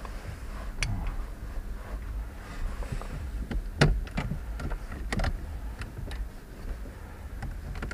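Scattered sharp clicks and knocks of plastic parts being handled and pried as a car's Thermotronic climate-control unit is dismantled, over a low steady rumble.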